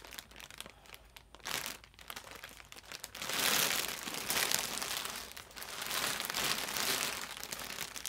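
Clear plastic vacuum-compressed bag packed with yarn skeins crinkling as it is handled and turned over. The crinkling comes in several bouts and is loudest about halfway through.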